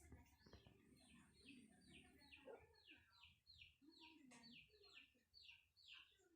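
Faint bird chirping over and over in a steady run: short falling notes, about two to three a second.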